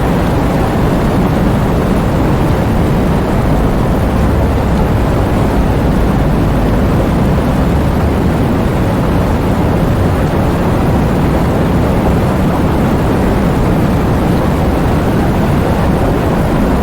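Heavy thunderstorm: a loud, steady, deep rumbling wash of noise with no sharp thunderclaps.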